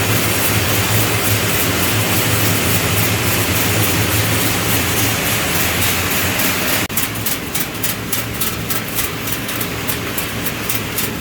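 Metal-scrap color sorting machine running with a steady low hum and a dense mechanical rush. About seven seconds in the sound changes abruptly: it gets a little quieter and turns to rapid, regular high-pitched ticking.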